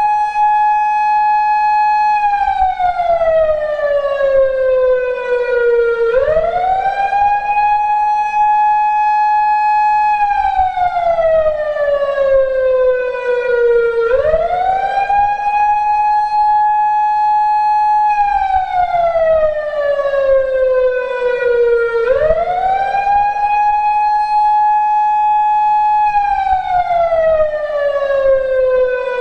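PATLITE SAP-50 electronic siren amplifier sounding a slow wail with a buzzy tone: each cycle climbs quickly, holds at the top for about two seconds, then slides slowly back down, repeating about every eight seconds.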